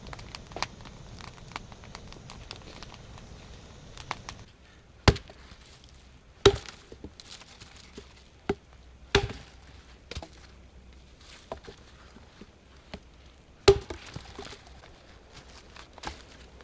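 Wood being chopped: four loud, sharp blows spaced a few seconds apart, with lighter knocks between them. Faint crackling runs for the first few seconds before the blows begin.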